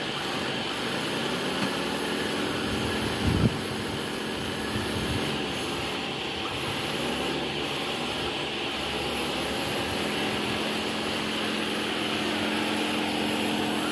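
Radio-controlled model excavator and bulldozer running, their motors whining with the pitch rising and falling as they work. One short knock about three seconds in.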